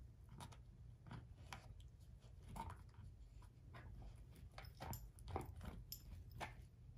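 German shorthaired pointer gnawing an air-dried, hair-on pig foot: soft, irregular crunches and chewing clicks, about a dozen in all, as her teeth work the dried skin and bone.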